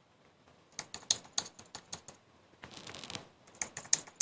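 Computer-keyboard typing sound effect playing back: a run of rapid, irregular key clicks starting about half a second in.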